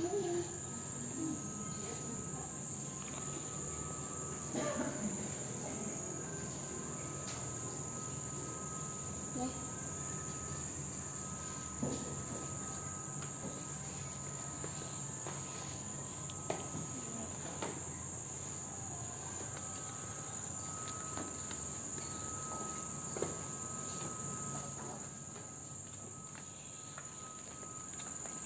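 A steady high-pitched whine over quiet room tone, with a few faint knocks and faint distant voices.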